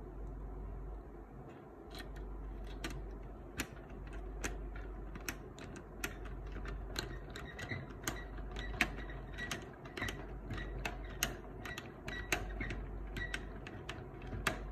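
A screwdriver turning a screw into the metal frame of a Canon LBP6000 laser printer, making a string of sharp, irregular clicks and creaks.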